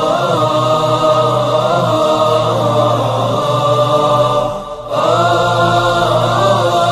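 Outro vocal music: a voice chanting long, held melodic phrases over a steady low drone. There is a short break just before five seconds in, and then a new phrase begins.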